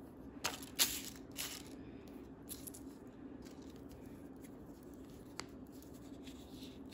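Small hollow plastic toy hair roller handled and worked open in the hands: a few light plastic clicks and scrapes in the first second and a half, then one more click a little past five seconds, over a steady low hum.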